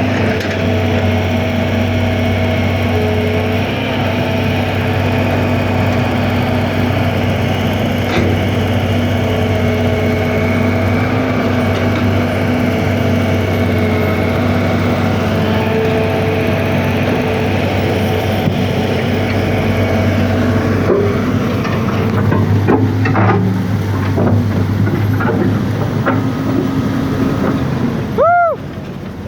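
Heavy engine running steadily at a constant pitch. Near the end there is a brief swooping tone, and then the sound drops away suddenly.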